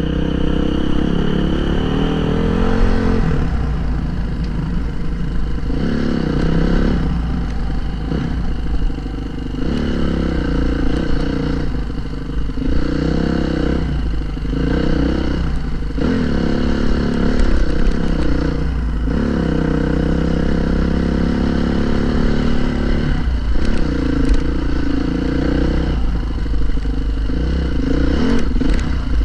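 Honda CRF450R dirt bike's single-cylinder four-stroke engine being ridden, its pitch rising and falling over and over as the throttle opens and closes through the gears.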